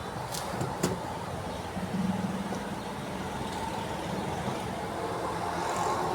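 Steady background road-traffic noise with a low hum, broken by a couple of sharp clicks about a second in.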